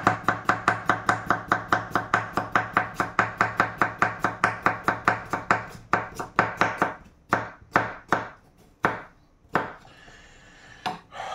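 Chef's knife slicing a fresh cucumber into rounds on a thick wooden chopping board, the blade knocking on the wood in a quick, even rhythm of about five strokes a second, then slowing to a few spaced strokes that stop about nine and a half seconds in.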